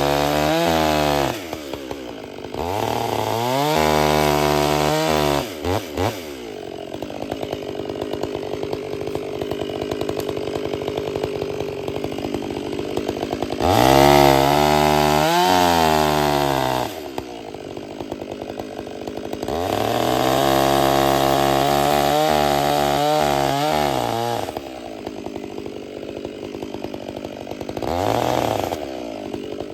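Two-stroke chainsaw running at full throttle in four long bursts and a short one near the end, dropping back to idle between them. Its pitch dips and recovers within each burst, as when the chain is loaded in a cut.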